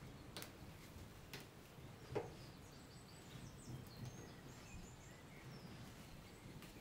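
Quiet room tone with a few light clicks, the sharpest about two seconds in, as leaf stalks of a Japanese maple bonsai are snapped off by hand. Faint high bird chirps sound in the background near the middle.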